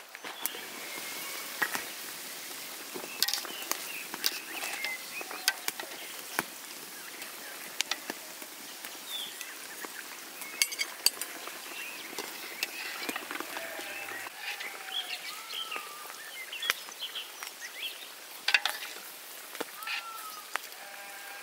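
Birds chirping outdoors, with scattered clinks and knocks of a metal ladle, pot and colander being handled.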